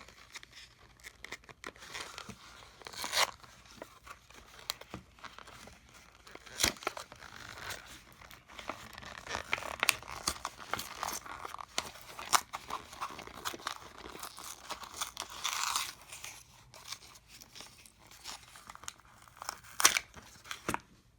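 Product packaging being torn open and crinkled by hand: irregular tearing, crunching and crackling, with scattered sharp snaps.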